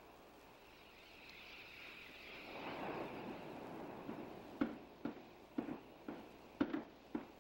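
Footsteps on a wooden pier deck, about two a second, starting a little past halfway, after a faint, even background hiss.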